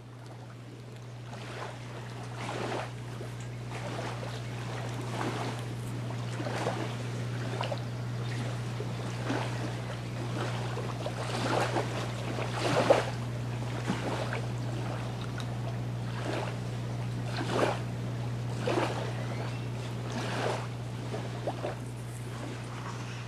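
Beach ambience: small waves washing irregularly on the shore over a steady low hum.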